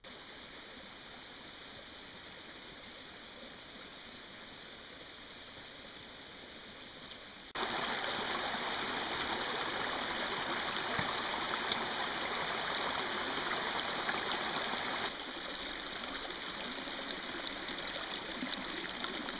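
Water of a small creek running and splashing over rocks in little cascades, a steady rush. It turns abruptly louder about a third of the way in and drops back somewhat about three-quarters of the way through.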